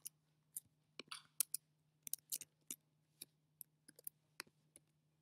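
Faint, irregular clicks of a computer being worked, scattered through, over a low steady hum.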